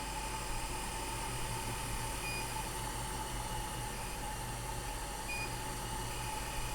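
Quick hot air rework station blowing steadily, a hiss of air with a faint steady tone, while reflowing a CPU onto a phone logic board. Two short high beeps sound about three seconds apart.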